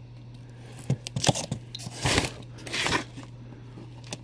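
A cardboard shipping box being opened: packing tape slit with a blade and the cardboard flaps scraping and tearing, in about four short scraping bursts, the loudest about two seconds in.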